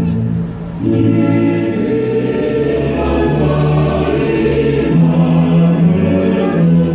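Music with a group of voices singing long, held notes. The sound dips briefly about half a second in.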